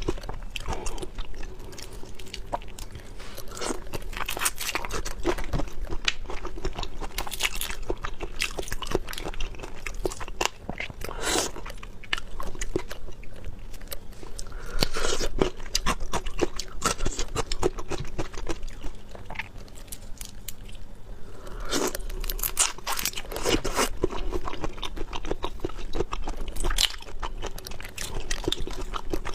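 A person chewing and biting crunchy food, with dense irregular crunches and wet mouth sounds throughout.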